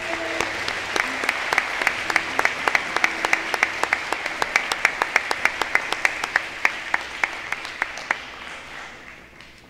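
Audience applauding, with single hand claps standing out clearly, dying away near the end.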